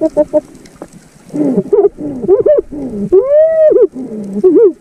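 A series of pitched calls heard underwater, each swooping up and down in pitch, with one long arched call about three seconds in, after a short quiet gap at the start.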